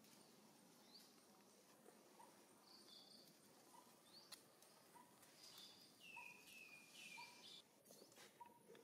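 Near silence: quiet outdoor ambience with faint high-pitched chirping calls, a short one about three seconds in and a run of three falling chirps a few seconds later.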